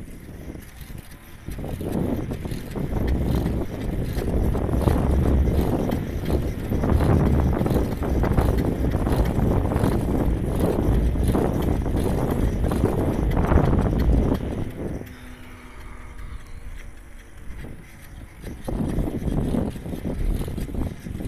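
Wind buffeting the microphone while moving along a path, with rustling and knocks. It drops away for a few seconds about three-quarters of the way through, then comes back.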